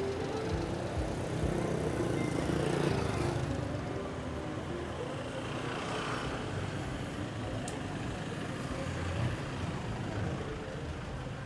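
Busy street ambience: a steady wash of traffic noise, with vehicles passing by.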